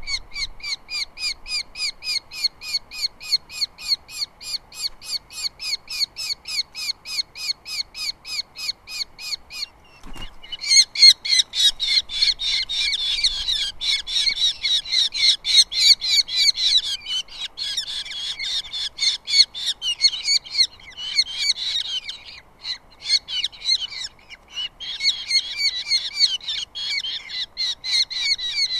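Osprey giving a rapid series of short, high whistled chirps, about four a second. About ten seconds in there is a faint knock, and the calling becomes louder and denser with overlapping calls, as if more than one bird is calling.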